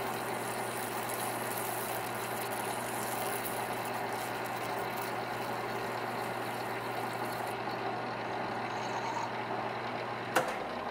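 Wasino LR-55A lathe running with a steady hum while a turning tool cuts a metal workpiece, the chips peeling off with a steady hiss. About three-quarters of the way through the cutting hiss drops away as the tool leaves the cut and the spindle keeps running; a single sharp click comes near the end.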